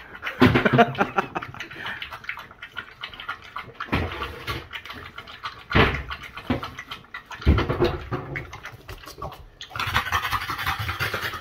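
French bulldog lapping water from a raised bowl in rapid, irregular strokes, a few of them louder. About ten seconds in it drops to the floor and pants hard and fast, a flat-faced dog overheated after a walk in the heat.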